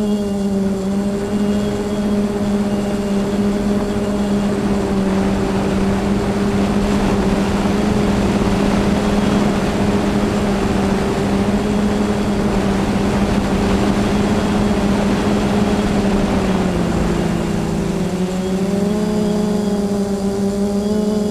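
Quadcopter's electric motors and propellers humming at a steady pitch, heard from the onboard camera with wind rush. The pitch sags briefly about 17 seconds in, then climbs back.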